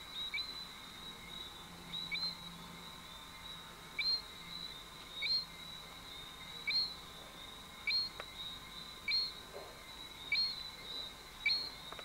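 Short two-note whistled calls, each a low note followed by a higher rising one, repeated about every 1.2 seconds, over a steady high-pitched drone.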